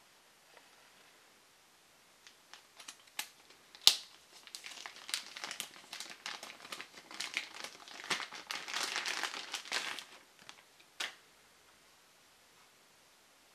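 Clear plastic bag crinkling as a Canon battery charger is unwrapped by hand. It starts with a few sharp clicks, the loudest a single snap, then runs as several seconds of dense crinkling and ends with one more click.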